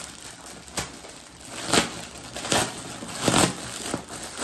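Plastic packaging crinkling in several short bursts as hands handle it.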